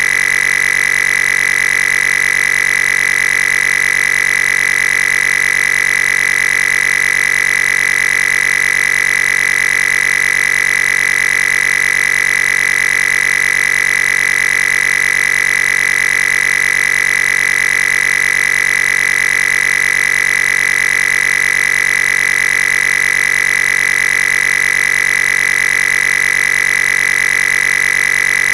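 Loud, steady electronic buzz with a strong high-pitched tone, unchanging throughout.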